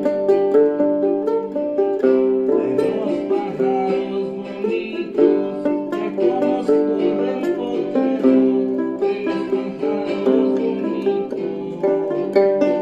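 Plucked string instrument playing a quick, continuous melody with chords, the notes changing every fraction of a second.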